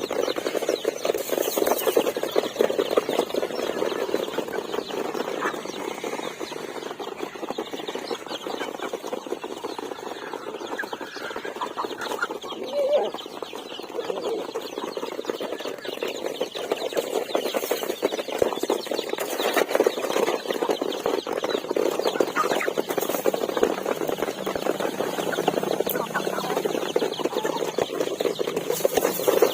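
A flock of chickens clucking together in a steady, dense chatter, with one short louder call about 13 seconds in.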